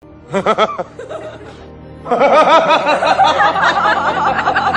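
Laughter sound effect over music: a short burst of laughing near the start, then about two seconds in a louder, longer run of laughter.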